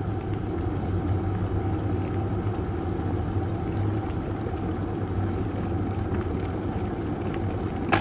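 Plastic electric kettle with water at a steady boil. Its automatic shut-off switch flips off with a sharp click near the end, meaning the water has reached the boil.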